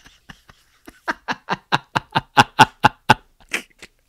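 A man's quiet, breathy laugh: a quick run of about a dozen short pulses that thins out and stops near the end. It is an embarrassed laugh at his own words.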